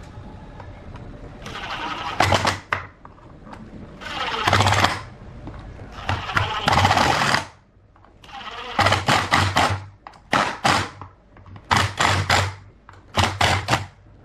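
A workshop machine working material in repeated short bursts, about seven in all, some made of rapid strokes, with a low hum under each burst.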